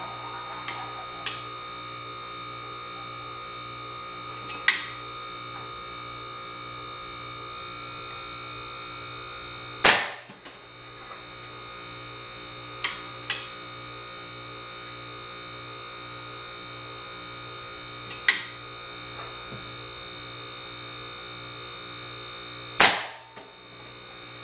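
A homemade .177 solenoid-valve air rifle, charged to 150 psi, fires twice about 13 seconds apart, each shot a sharp loud crack. Smaller metallic clicks come from the breech being worked between the shots, over a steady hum.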